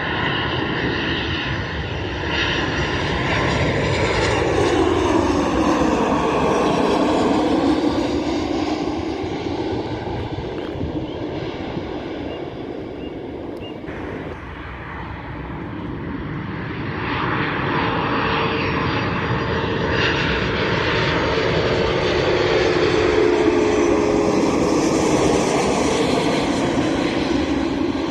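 Jet engines of two airliners on approach passing low overhead, one after the other. First a Ukraine International Airlines Boeing 737, its engine whine falling in pitch as it passes. Then, after a cut about halfway through, a Virgin Atlantic Airbus A330 approaching with a steady whine that slowly drops in pitch and grows louder.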